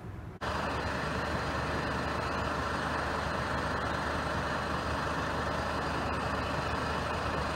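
Several parked fire engines with their engines running: a steady low engine hum under an even rush of noise, starting abruptly about half a second in.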